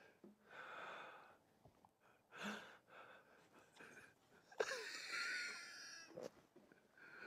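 Faint stifled laughter: a few short breathy snorts and wheezes held back behind hands, with a longer squeaky, suppressed burst about halfway through.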